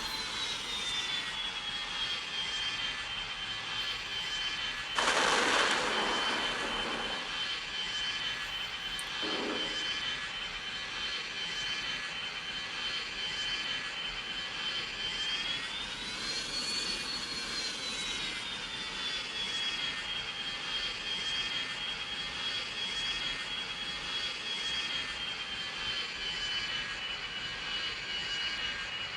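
Cabin sound of a McDonnell Douglas MD-90 airliner on approach: its rear-mounted V2500 turbofans give a steady high whine over a rushing hum. The whine settles lower early on, rises briefly in pitch about halfway through, then settles again. A loud rush of noise lasts about two seconds, some five seconds in, and a shorter one comes just before ten seconds.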